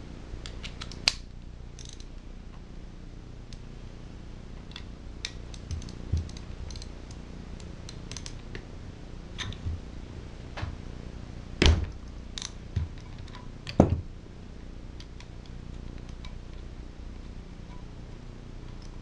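Socket ratchet clicking in short, irregular runs while bolts are loosened on a Tecumseh small-engine carburetor, with light metal clinks of the tool and parts and a few louder knocks about twelve and fourteen seconds in.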